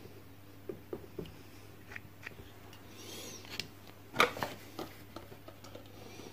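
Faint small handling sounds: a few light clicks and taps, then a louder clatter about four seconds in as an aluminium foil cup is set down on the bench, over a low steady hum.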